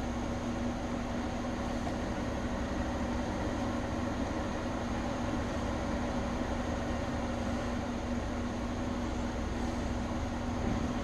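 Steady background hum with a constant hiss, unchanging throughout.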